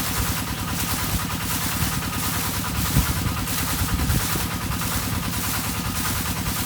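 Engine-driven irrigation water pump running steadily, with frogs calling in a pulsing chorus over it.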